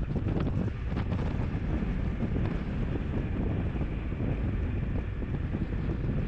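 Steady wind buffeting on the microphone of a moving motorcycle, with the bike's engine and road noise underneath.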